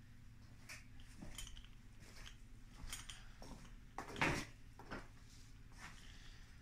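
Several light knocks and clinks, the loudest a sharper knock about four seconds in, over a steady low hum.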